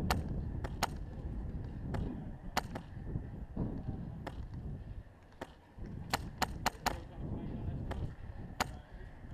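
Airsoft rifles firing: about a dozen sharp pops, mostly single shots a second or so apart, with a quick run of four about six seconds in. Under them runs a low rumble of wind on the microphone.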